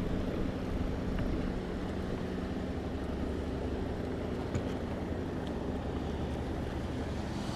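Steady low outdoor rumble with a faint engine-like hum that fades out about three seconds in.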